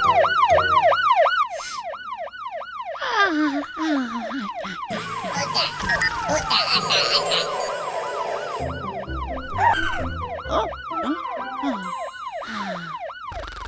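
Siren yelping fast, about four rising-and-falling sweeps a second, over cartoon music with falling sliding sound effects.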